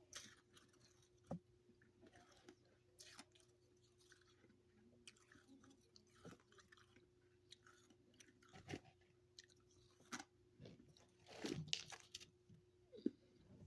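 Quiet chewing of freezer frost: scattered soft, crunchy bites, with a denser run of crunching about three quarters of the way through.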